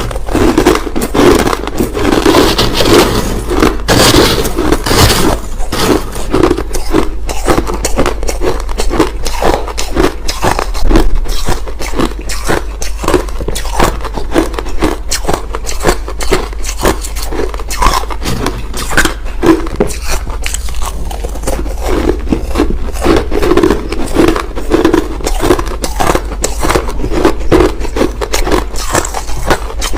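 Crushed ice being bitten and chewed close to the microphone: a fast, unbroken run of crunches and cracks.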